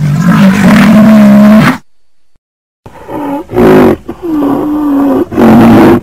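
Rhinoceros calling: one long, steady call of nearly two seconds, then after a short pause a run of four shorter calls.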